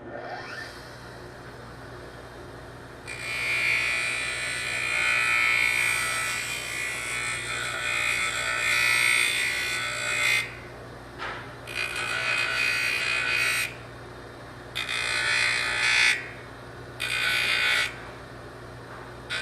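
Small rotary tool spinning up, then grinding the corner off a plastic O2 sensor connector. There is one long pass of about seven seconds, then several shorter ones, with the motor running steadily in between.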